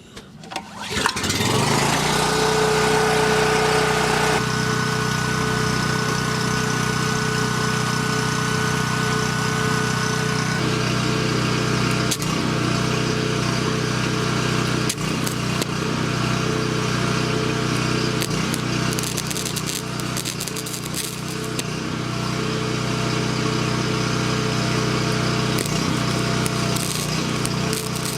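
Portable generator's small engine starting about a second in, rising quickly in pitch, then running steadily. A few light clicks and knocks sound over it later on.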